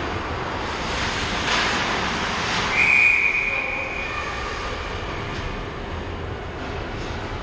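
Ice hockey referee's whistle blown once, a shrill steady blast about three seconds in that stops play, after a couple of sharp knocks of sticks and puck; a steady hum of rink noise sits beneath.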